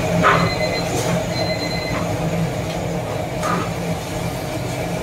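Steady commercial-kitchen noise from a gas wok burner, with a faint high whine held throughout and a few short metallic squeaks.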